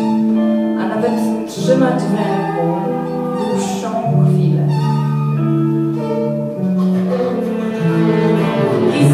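Live band music led by two violins playing long, held bowed notes that change about every second or two, with accompaniment underneath.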